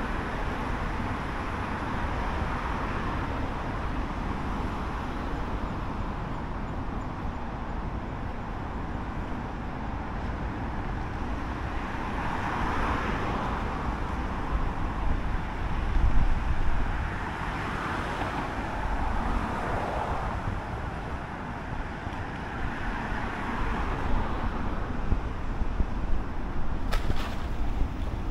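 City street traffic: a steady wash of road noise, with vehicles swelling past a few times and a brief click near the end.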